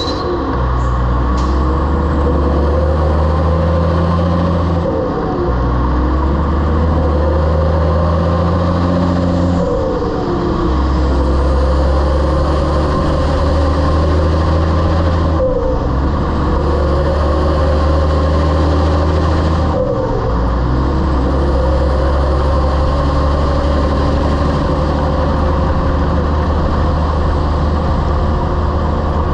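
Heavy-haul semi truck's diesel engine pulling under load. Its note drops and then climbs again four times, about every five seconds, as the truck shifts up through the gears.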